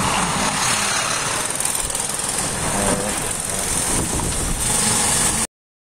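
Steady road and engine noise from inside a moving car, cutting off suddenly to dead silence near the end.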